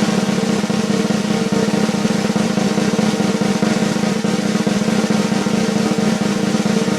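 Snare drum roll: a fast, continuous roll of rapid strokes held at an even level.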